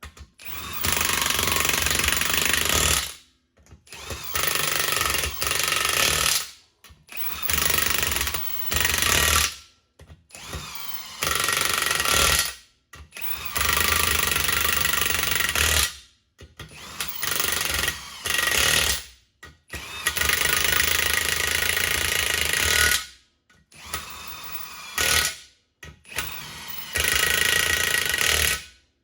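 Power impact wrench running down the bolts of a two-piece Humvee wheel in about nine short runs, each starting up with a rising whine and stopping abruptly, as the bolts are tightened one after another in a cross pattern.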